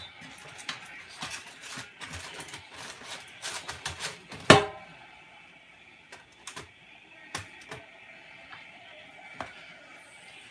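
Crinkling foil and packaging with a quick run of small clicks and crackles as raw bacon strips are laid into a foil-lined air fryer basket. A single sharp knock with a short ring comes about four and a half seconds in. After that there are only a few scattered clicks.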